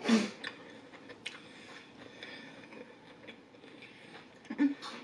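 A person chewing food with small wet mouth clicks, and two short "mm" hums of enjoyment, one at the start and a louder one near the end.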